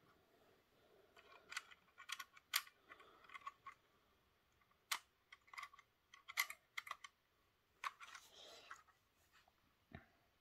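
Faint, irregular light clicks and taps of a plastic Roco model railway coach being handled and turned over in the hands.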